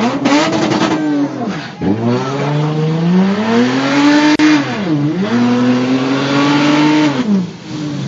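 Car engine revving hard under full acceleration, heard from inside the cabin. The pitch climbs, dips sharply twice as it changes gear, and falls away as the throttle is lifted near the end.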